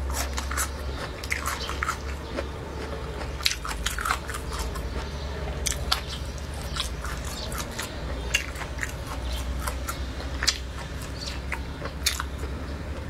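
Close-miked chewing and biting of braised lu wei snacks such as chicken feet and beef skin: irregular sharp crunches and clicks throughout, over a steady low hum.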